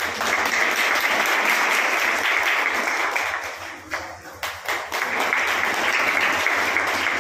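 Audience applauding as prizes are handed out, dipping briefly about four seconds in and then picking up again.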